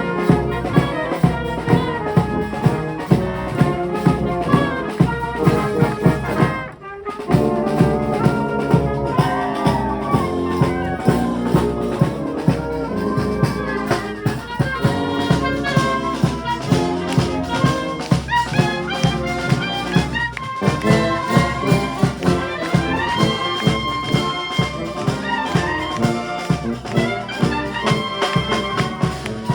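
High-school wind band playing live, trumpets and trombones carrying the tune over a steady drum beat. The music breaks off briefly about seven seconds in, then starts again.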